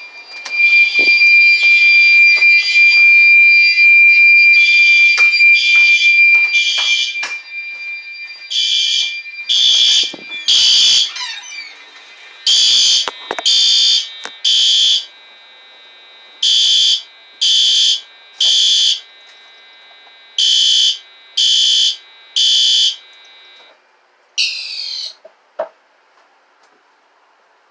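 Household smoke alarms sounding on test. First a loud, continuous shrill tone with pulsing beeps over it cuts off about seven seconds in. Then beeps come in groups of three with a pause after each group (the three-beep evacuation pattern), four groups in all, before a short falling chirp and a click end it.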